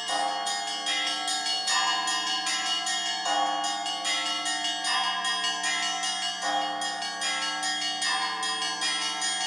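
Church bells ringing a continuous peal: several bells struck in quick succession, several strikes a second, their tones ringing on and overlapping. The pattern repeats about every second and a half.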